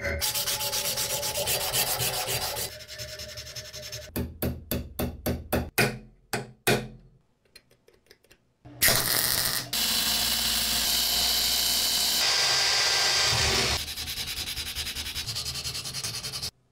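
Hand filing and sanding of steel by hand. A file rasps in quick strokes, then in a run of separate strokes that die away. After a brief lull, abrasive paper rubs steadily on the metal and cuts off suddenly near the end.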